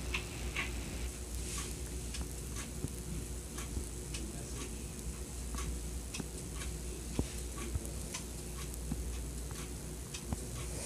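Early-1980s Emerson-built Sears ceiling fan with a K-55 stack motor, running steadily on medium through a speed control. It gives a low hum with a light ticking about twice a second.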